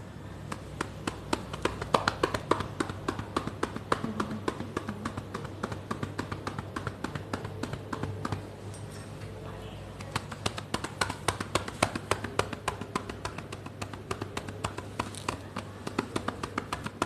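Cupped hands clapping rhythmically on a patient's back in chest-physiotherapy percussion, used to loosen airway secretions. Quick, sharp pats come about five a second, break off for a moment about eight seconds in, then start again.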